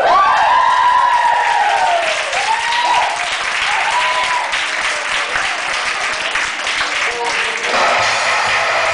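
Audience clapping and cheering, with several high whoops in the first few seconds that rise and fall in pitch. Music with a bass beat starts up again near the end.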